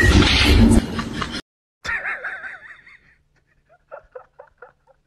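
A person laughing: a loud stretch at the start, then, after an abrupt cut, soft snickering in short, evenly spaced pulses near the end.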